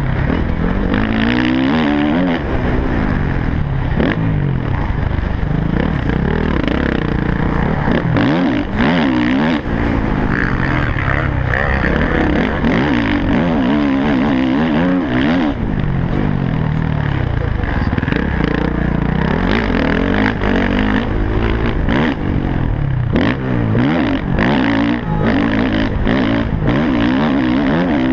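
Motocross bike engine heard on board at race pace, revving up and down over and over as it accelerates, shifts and backs off for turns. A few sharp knocks near the end.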